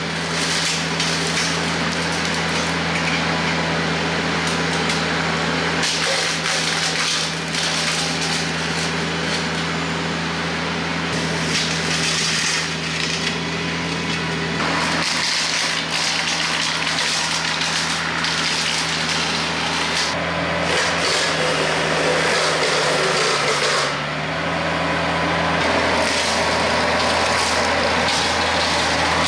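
TYM T474 tractor's diesel engine running steadily under load while the front-mounted Hardee Brush Tiger hydraulic rotary cutter chops brush and limbs, with repeated bursts of crackle and splintering wood on top of the steady engine drone.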